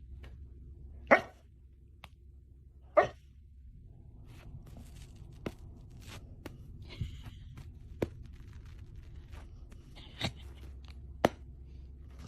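A dog gives two short barks, about one and three seconds in, amid scattered light taps and clicks over a steady low hum.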